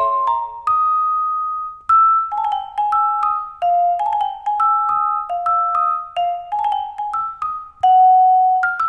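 Marimba One One Vibe vibraphone played with yarn mallets: a melody of single and paired notes, some left to ring and others damped short.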